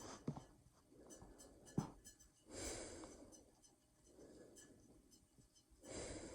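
A person breathing slowly: two faint, airy breaths about three seconds apart, with a single sharp click shortly before the first.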